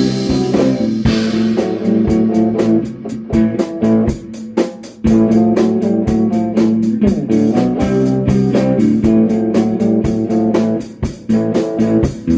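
A rock band playing an instrumental: electric guitar, bass and drum kit. The guitar holds sustained notes over a steady drum beat, which thins out briefly about four seconds in before the full band comes back.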